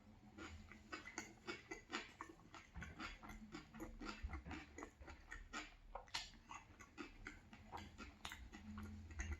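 Close-up chewing of a crunchy baguette banh mi sandwich: a quick irregular run of faint crackles and mouth clicks.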